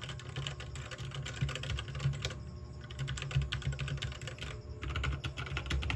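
Fast typing on a 60% mechanical keyboard: a dense, continuous run of key clacks.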